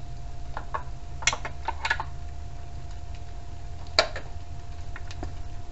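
Irregular metallic clicks and clinks of hand tools working on the bolts and bracket of a knee scooter's engine mount while the engine is unbolted, with a sharper clank about a second in and another near four seconds. A faint steady hum runs underneath.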